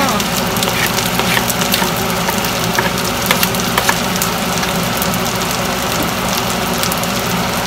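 Chopped onion and aromatics sizzling in hot oil in a stainless steel frying pan as they are scraped in from a cutting board and stirred, with scattered clicks of a metal spoon against the pan.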